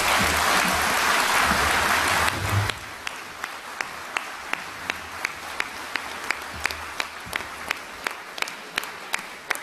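Audience applauding. It is loud for the first few seconds, then falls to softer applause in which single claps stand out at about three a second.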